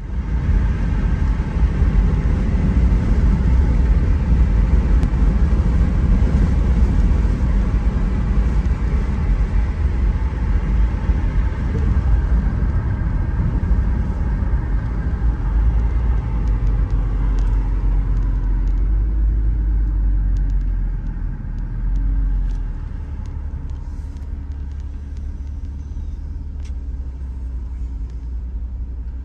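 Road noise heard from inside a moving car: a steady, heavy low rumble of tyres and engine that eases off about two-thirds of the way through as the car slows to a stop in traffic.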